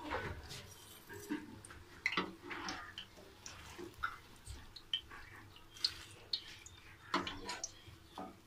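Metal slotted spatula clinking and scraping against an aluminium frying pot and wire skimmer as fried donuts are lifted out of hot oil, in scattered light clicks and taps, with a faint crackle from the frying oil.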